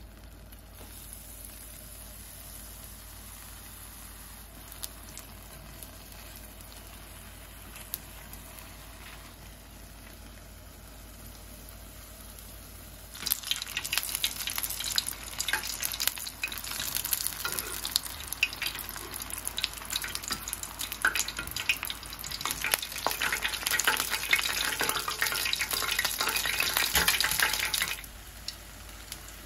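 Beer-battered mushrooms deep-frying in hot oil in an iron pan. For the first dozen seconds there is a soft, steady sizzle. About halfway through it turns into a much louder, dense crackling sizzle with many sharp pops, which drops back suddenly to a soft sizzle near the end.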